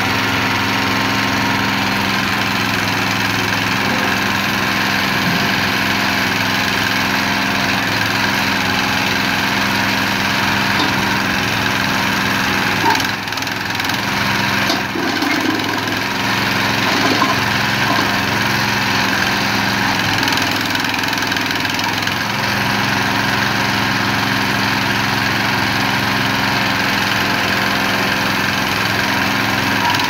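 Small 9 hp engine of a towable mini backhoe running steadily while it drives the hydraulics that work the boom. Its sound wavers briefly about halfway through.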